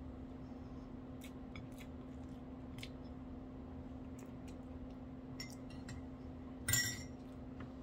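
Scattered light clicks and taps of fingers picking noodles from a glass dish, over a steady low hum. Near the end, a sharp ringing clink of a spoon against a mug.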